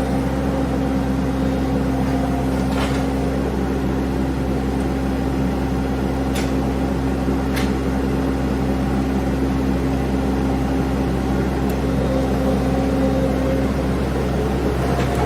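An engine running at a steady speed with no revving, with three faint clicks about three, six and seven seconds in.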